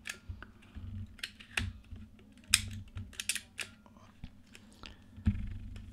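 Irregular sharp mechanical clicks from the shutter mechanism of a partly reassembled Voigtlander Bessy K camera as its shutter release lever is worked several times, checking that it has caught on its pin. A duller knock near the end.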